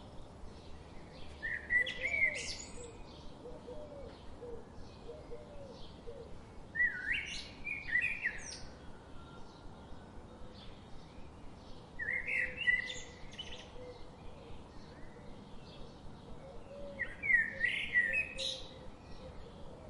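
Birdsong: one bird sings a short, loud, quickly sweeping phrase about every five seconds, four times in all. Faint rapid chirping continues steadily in the background.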